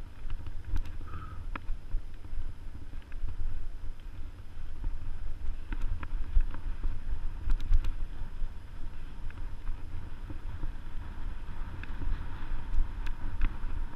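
Mountain bike riding over a dirt forest trail: wind buffets the camera microphone in a constant fluctuating rumble, with scattered sharp clicks and rattles from the bike as it rolls over the ground.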